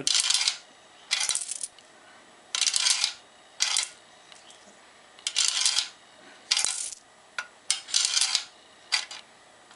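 Coins fed one at a time through a coin-operated timer's coin slide, each sliding through and dropping with a short metallic rattle, about eight in a row roughly a second apart. The coins pass freely, a sign the slide is clear of obstructions.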